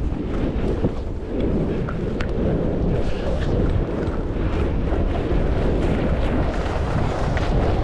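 Wind rushing over the camera microphone at skiing speed, a steady low rumble, with the hiss of skis running over cut-up powder snow.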